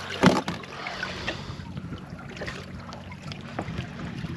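Fishing tackle handled aboard a small boat while a fish is played on rod and reel. There is one loud knock about a quarter of a second in, then scattered light clicks over a steady low hum and wind noise.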